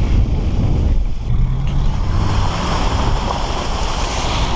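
Truck driving through a muddy water puddle: wind buffeting the microphone over the engine's rumble, with a rising hiss of water and mud spraying off the tyres from about halfway through.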